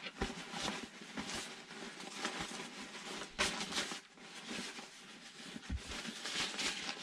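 Rustling of the Osprey Exos 48 rucksack's fabric and a hydration bladder as hands work the bladder and its tube into the pack, with small irregular clicks. A louder burst of rustling comes about three and a half seconds in.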